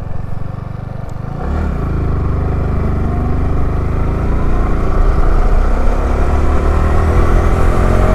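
Motorcycle engine accelerating. Its note climbs steadily and grows louder from about two seconds in.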